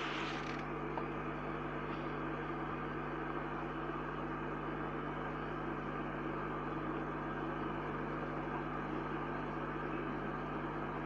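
Kettle at the boil: a steady hissing, bubbling noise over a constant low hum, with a brief brighter hiss at the very start.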